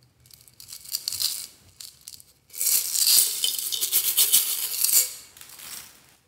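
Small gold tube beads rattling as they are shaken out of a small bottle onto slime. They come in two spells, the second longer and louder.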